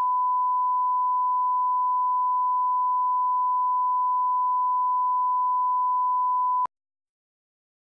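Bars-and-tone line-up test tone: a steady, pure 1 kHz beep at one unchanging level that cuts off suddenly near the end.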